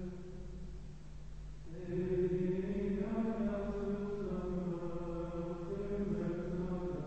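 Carthusian monks singing plainchant in unison: men's voices holding long, slowly moving notes, with a louder new phrase beginning about two seconds in.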